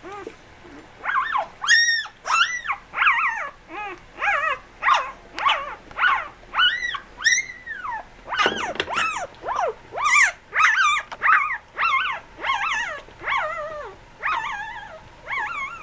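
Newborn Labradoodle puppies squealing and whining: a steady run of high-pitched cries that rise and fall in pitch, one or two a second, starting about a second in.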